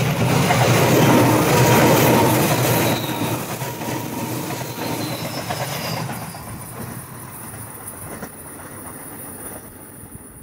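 Sound of a real electric train running past: wheels rolling with a clickety-clack over rail joints and a thin squeal early on. It is loudest in the first couple of seconds, then fades away as the train recedes.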